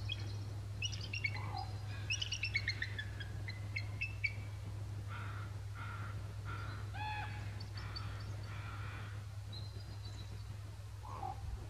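Bald eagles calling: quick runs of high, thin, chittering whistles that fall in pitch, then a series of shorter, lower repeated calls about two a second through the middle, over a steady low hum.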